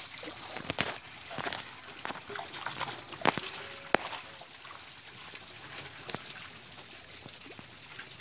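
Water splashing and sloshing as a fishing net is worked in shallow pond water, with a run of sharp splashes and clicks through the first half. It goes quieter after about four seconds.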